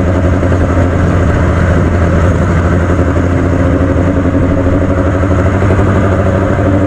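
2009 Yamaha FZ6 Fazer 600's inline-four engine running on the move, its note broken into a fluttering, choppy sound like a helicopter. The pitch rises slowly in the second half.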